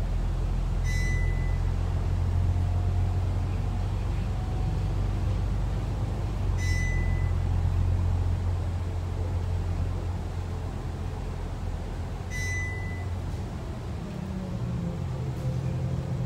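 On board a Volvo B9TL double-decker bus, with its rear-mounted six-cylinder diesel making a steady low drone while the bus drives. The engine note shifts about three-quarters of the way through. A short high beep sounds three times, about six seconds apart.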